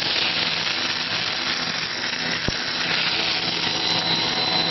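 Corn stick extruder running: a steady machine hiss with a thin high whine and a low hum, and one sharp click about halfway through.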